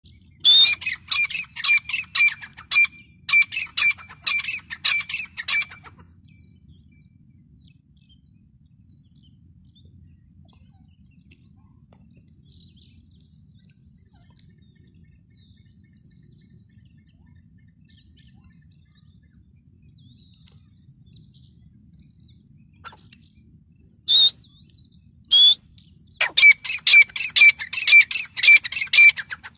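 Female grey francolin calling in rapid runs of sharp, high, repeated notes for about the first six seconds. Then comes a long quiet stretch with only a faint low background rumble, two single calls, and another rapid run of calls near the end.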